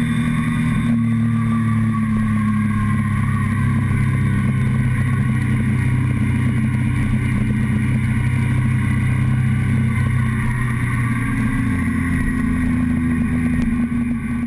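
Motorcycle engine running steadily at cruising revs, heard close up from the fuel tank, with wind rush over it; the engine note eases slightly near the end.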